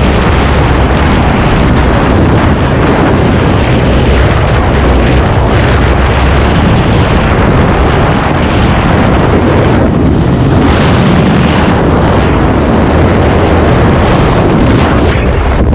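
Freefall airflow rushing over the camera microphone during a tandem skydive: a loud, steady roar of wind noise.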